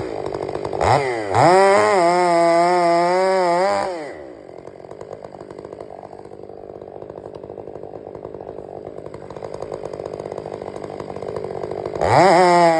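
Stihl 500i two-stroke chainsaw revved to full throttle about a second in, its pitch wavering at high revs. It drops back to a steady idle at about four seconds, then revs up hard again near the end.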